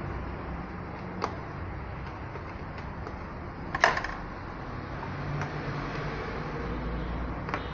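A few sharp clicks and knocks over a steady low rumble. The loudest is a short clatter about four seconds in.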